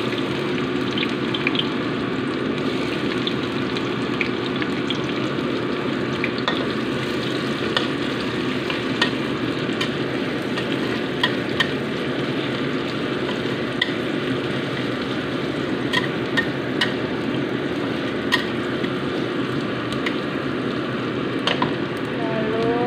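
Sliced onion sizzling steadily in hot oil in a steel wok as it is stir-fried with a metal spatula, with sharp ticks and pops now and then.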